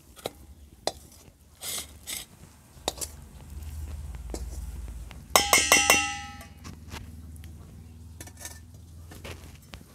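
Long metal spatula scraping cooked coconut-and-sugar filling out of a steel wok into a steel bowl, with soft scrapes and clicks. About five seconds in comes a quick run of about five ringing metal clinks as the spatula strikes the steel.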